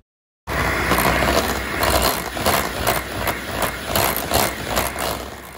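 Electric hand mixer running, its wire beaters whipping cream and powdered sugar in a glass bowl. It starts about half a second in and runs with a steady rattle and frequent sharp clicks.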